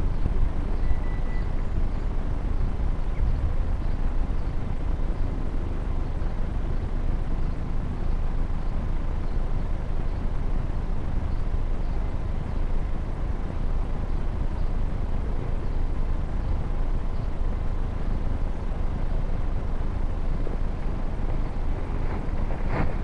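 Steady wind rumble and hiss on a quadcopter camera's microphone, with the motors stopped; a faint short beep about a second in.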